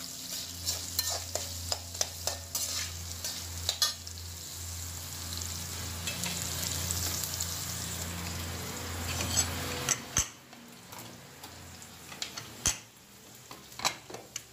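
Sliced onions sizzling in hot oil in an aluminium kadai, a slotted metal spatula scraping and tapping the pan as they are stirred, over a steady low hum. About ten seconds in the sizzling drops away and a few sharp metal clicks follow as the aluminium pressure cooker is handled.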